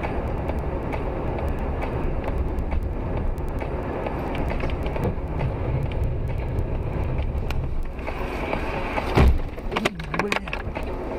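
Steady road and engine rumble of a car driving, heard through a dashcam inside the car, with one sharp, loud thump about nine seconds in.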